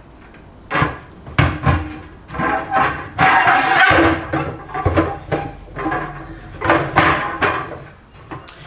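White plastic Tower Garden grow cage knocking and scraping against the stacked tower sections as it is pushed down and fitted into place. A run of sharp knocks, with a longer stretch of rubbing and scraping in the middle.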